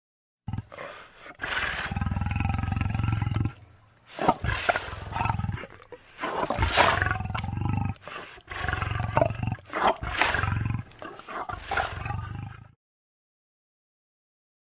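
Lion roar sound effects: a string of long, deep roars and growls, one after another, that cuts off suddenly about two seconds before the end.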